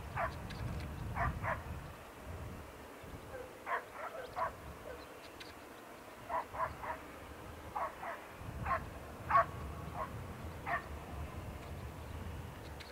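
A dog barking in short, sharp yips, irregular groups of two or three, the loudest about nine seconds in, over a low rumble.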